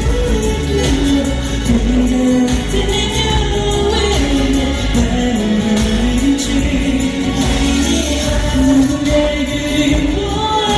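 A male solo singer performing live over backing music, holding long notes that slide up and down in pitch.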